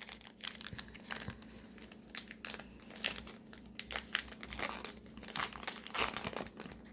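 A baseball card pack's wrapper being torn open and crinkled by hand: an irregular run of crackles.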